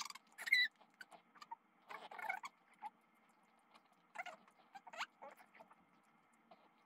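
An elderly small dog's short, high squeaky whimpers, a few scattered over several seconds, one of them quickly rising, mixed with soft wet chewing and lip-smacking as it is spoon-fed.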